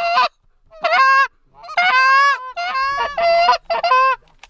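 Reed duck call blown in a series of about six loud, nasal quacks, a longer drawn-out note a little after two seconds in and the last few in a quicker run.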